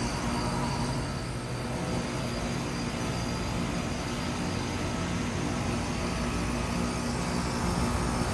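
Carrier Comfort Series heat pump outdoor units running steadily: a low compressor hum with several steady tones under a broad hiss.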